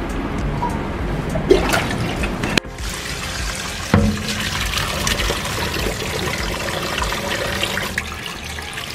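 Kitchen tap water running and splashing into a stainless-steel bowl as raw chicken is washed in it. After a cut about two and a half seconds in, the water runs into a stainless-steel colander of rice being rinsed under the tap.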